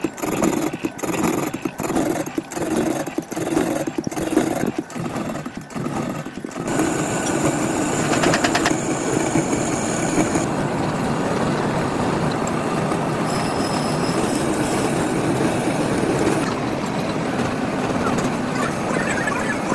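Loud mechanical noise from heavy factory machinery. It comes in choppy, broken stretches for the first six seconds or so, then settles into a continuous din.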